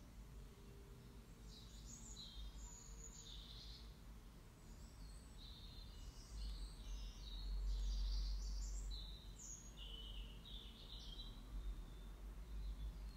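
Small birds chirping in short, high calls on and off throughout. Under them is a low rumble that swells for a few seconds in the middle.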